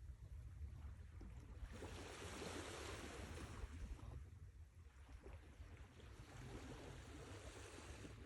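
Sea waves washing in and drawing back, each wash rising to a hiss and fading, one about two seconds in and another from about five seconds, over a steady low rumble of surf.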